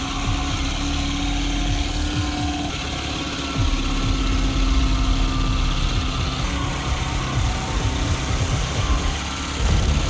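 Heavy machinery running steadily, an engine rumble with uneven low thumps.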